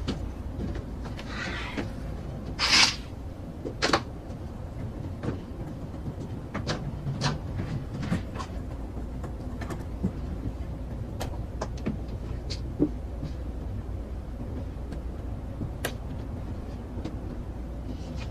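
Steady low drone of an airliner cabin in flight, with scattered soft clicks and rustles over it. A brief louder rustle comes about three seconds in.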